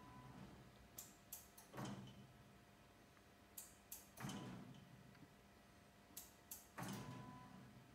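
CNC mill toolchanger cycling under test: each cycle is two quick clicks followed by a louder actuation sound that dies away over about a second. The cycle repeats about every two and a half seconds, three times.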